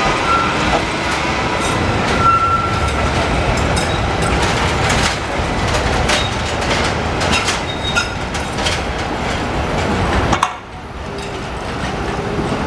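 Articulated tram passing close by, its wheels running over a junction of crossing rails with a steady rumble and a rapid series of sharp clicks, and short high wheel squeals near the start. The sound drops suddenly about ten and a half seconds in.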